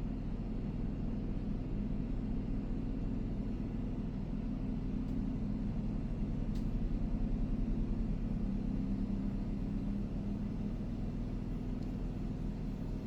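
Steady low hum of an RV generator running. The rear ducted air conditioner, started on low fan, is hardly heard over it: "you honestly can't even hear it".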